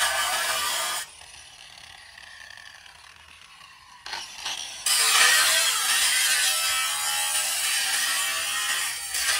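Corded angle grinder with an abrasive cut-off disc cutting through rusty steel bar. The sound drops away about a second in while the grinder is lifted off the metal, and the cutting starts again about five seconds in.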